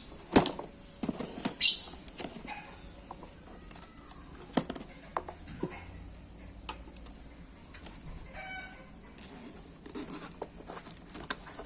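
Handling noise from unpacking a drone kit out of its carrying bag: scattered clicks, taps and short rustles of parts and packaging, with one brief pitched sound about eight seconds in.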